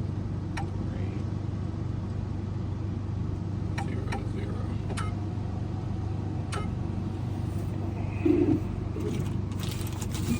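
Steady low motor hum with a few light, sharp clicks scattered through it, and a brief louder sound about eight seconds in.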